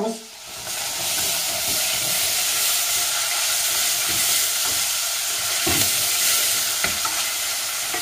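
Beef cubes and chopped onion sizzling steadily in hot oil in a stainless steel pot on a gas flame, stirred with a wooden spoon, with two light knocks past the middle. The meat and onion are being browned before water is added.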